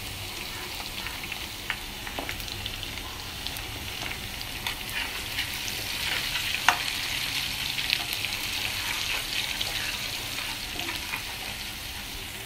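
Sliced garlic, curry leaves, mustard and cumin seeds sizzling in hot oil in a pan, stirred with a steel spatula. The sizzle swells in the middle, with scattered sharp clicks, the loudest about two-thirds through.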